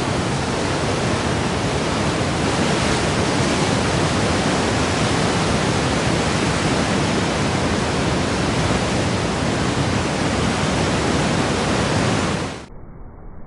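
Waterfall: a steady, loud rush of falling water. Near the end it cuts off suddenly to a quieter, duller rush of water from a different recording.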